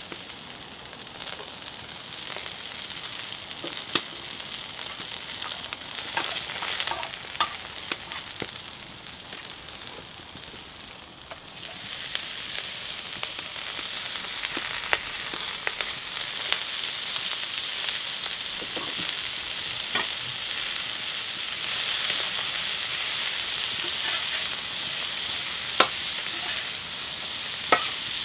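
Chicken and beef skewers sizzling on a large round black pan over a wood fire. The sizzle grows louder about halfway through as chopped peppers and vegetables are tipped onto the hot pan, with a few sharp clicks now and then.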